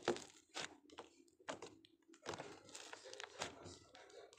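Thick slime being pressed and stretched by hand, giving off irregular crisp clicks and crackling pops, the loudest just after the start.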